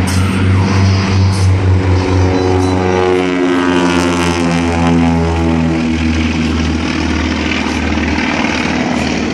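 Grumman HU-16 Albatross's twin Wright R-1820 Cyclone radial engines and propellers at takeoff power as it climbs away after lifting off, a loud steady drone. Its pitch falls as it passes, about four seconds in.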